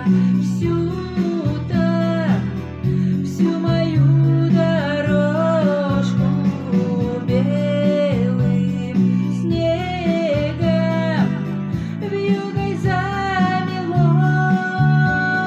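A song: a voice singing a gliding melody over plucked guitar accompaniment.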